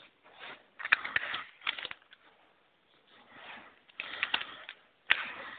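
Scratchy writing strokes in short bursts with small clicks: a group about a second in, another around four seconds in, and a last one near the end.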